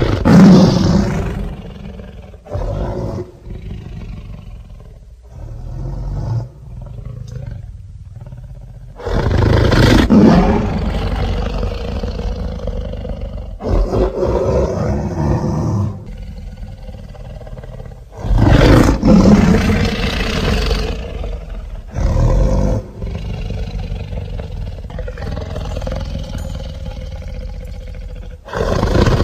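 Giant-monster (Godzilla) roar sound effects: several long, loud roars a few seconds apart, with a low rumble between them.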